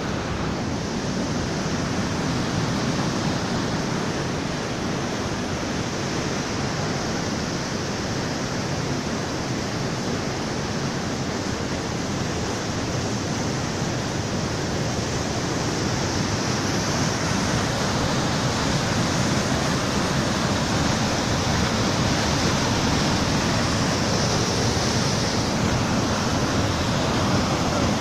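Rapids of the Radovna river rushing over boulders in a steady continuous wash of white water, getting a little louder in the second half.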